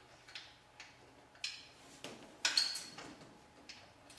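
Light, irregular metallic clicks and clacks from a steel home-care bed frame being handled, about seven or eight over a few seconds; the loudest comes about halfway through with a brief ring.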